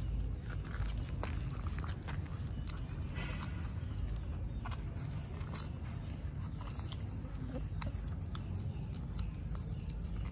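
Puppies suckling at their mother dog, making small, irregular wet smacking and clicking sounds over a steady low background rumble.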